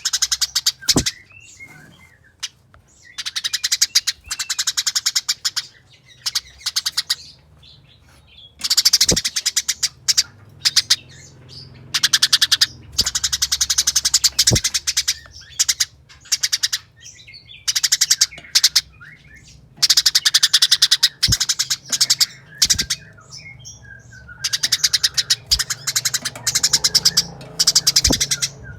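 Eurasian tree sparrows giving rapid, dense chattering bursts in the agitated 'fighting' style. The bouts last a second or two each and come again and again with short pauses between.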